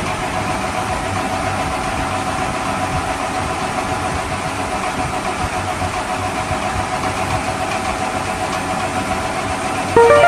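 Steady engine-idling sound effect from a toy vehicle's sound chip, a constant rumbling drone. Just before the end it gives way to a louder run of held electronic tones.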